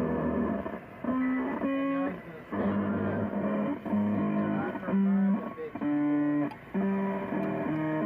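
Background music: electric guitar playing strummed chords and held notes with bass.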